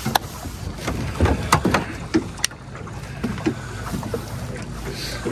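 Drift boat on a river: water sloshing against the hull, with several sharp knocks and taps in the first two and a half seconds from a trout and landing net being handled in the boat.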